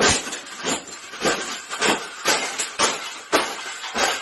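A wire birdcage being stomped flat underfoot: repeated stamps crushing and clanking the metal wire, about two to three a second.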